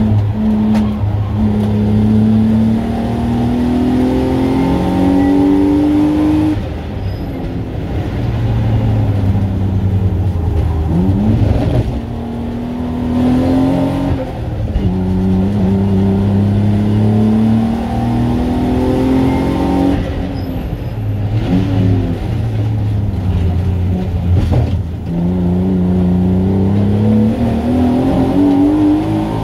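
Race car engine heard from inside the stripped cabin while lapping a circuit. The revs climb steadily through several long pulls and fall off between them, with quick rises after some of the drops.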